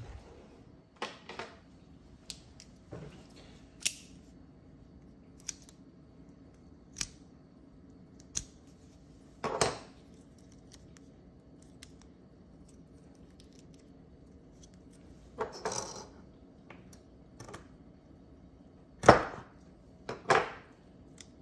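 Scattered small clicks and brief scrapes of a Google Nest Cam's metal camera bracket and its small parts being worked apart by hand. The loudest are two short scrapes near the end.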